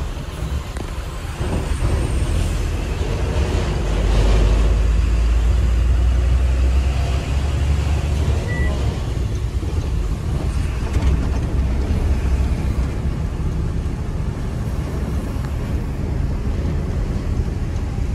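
Tata heavy truck under way, its diesel engine making a steady low drone with road and wind noise, heard from inside the cab. It grows louder about four seconds in.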